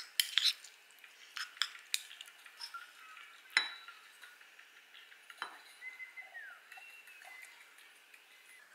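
Wooden spoon clinking and scraping against a ceramic bowl as rice is stirred and scooped: a quick run of clicks in the first two seconds, then a sharper knock about three and a half seconds in and another about two seconds later.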